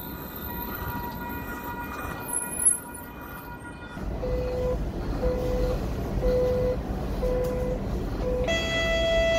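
ION light rail train, a Bombardier Flexity Freedom, humming while stopped at the platform. Then, inside the car over a low rumble, the door-closing warning sounds: five short, even beeps about one a second, followed near the end by the first note of a chime.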